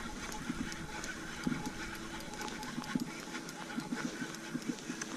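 Spinning reel being cranked to bring a hooked burbot up through an ice hole: a faint steady whir with many small scattered clicks.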